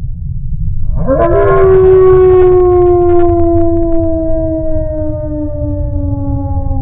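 A wolf howling: one long howl that starts about a second in, swoops up quickly, then holds and slowly sinks in pitch. A steady low rumble runs underneath.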